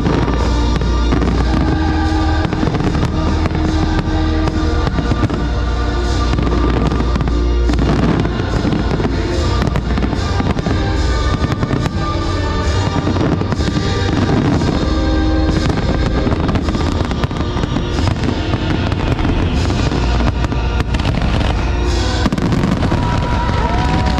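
Aerial fireworks bursting one after another, over loud music from the fireworks show's soundtrack.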